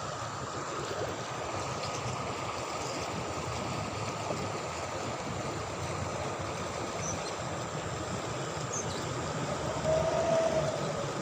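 River water flowing with a steady rush. About ten seconds in there is a brief, louder tone.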